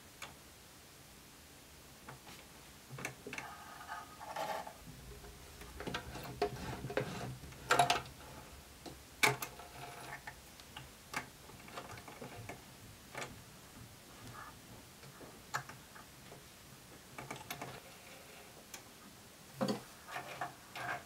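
Hands threading a sewing machine: irregular small clicks and ticks from the machine's parts, with soft rustling of thread being drawn through the needle. The loudest clicks come about 8 and 9 seconds in.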